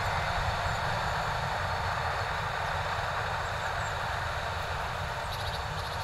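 CLAAS Lexion 580 combine harvester with a Geringhoff Rota Disc corn header harvesting maize, a steady drone of engine and threshing with a low rumble underneath.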